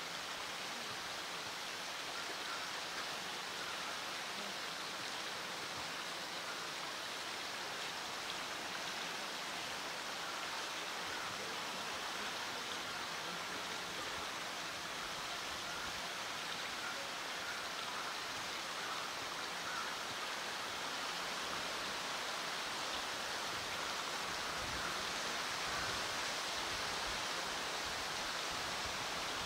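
Steady rushing sound of running water, unchanging throughout.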